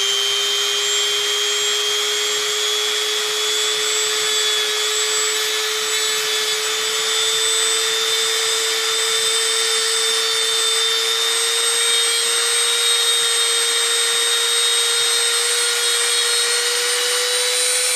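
High-speed handheld rotary tool fitted with a small diamond cutting wheel, running steadily with a high whine that creeps slightly higher in pitch.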